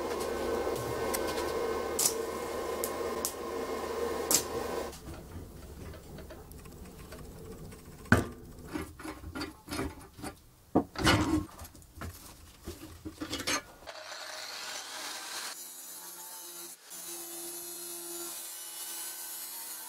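Stick welding for the first five seconds: the electrode arc crackles and hisses over a steady hum. Then there are several sharp metallic knocks and clanks. From about fourteen seconds an angle grinder's cut-off disc is cutting steel with a high hiss.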